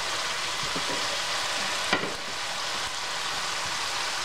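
Sweet potato wedges frying in oil and caramelizing brown sugar in a stainless steel pan, a steady sizzle, with a single sharp tap of a utensil against the pan about two seconds in.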